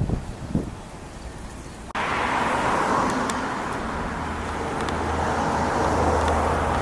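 Car driving on a road: a steady hiss of tyre and road noise over a low engine hum, starting abruptly about two seconds in after a quieter stretch.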